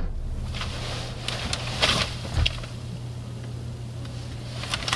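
Light rustling and a few soft knocks as a person shifts in a car's rear seat and reaches behind it, over a steady low hum in the cabin.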